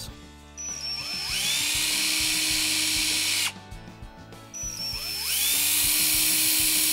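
Cordless drill boring pilot holes into the back of a wooden picture frame for eyelet screws, in two runs. Each run spins up with a rising whine and then holds steady. The first stops abruptly after about three seconds, and the second starts about halfway through.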